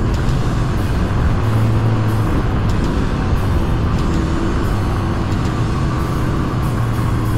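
Small four-stroke single-cylinder dirt bike engine running steadily while the bike rides along a gravel trail, heard from the rider's position.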